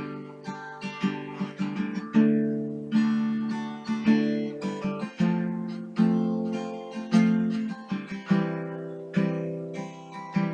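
Acoustic guitar strumming chords as an instrumental outro with no singing, strong strums about once a second, each left to ring out, with lighter strokes between.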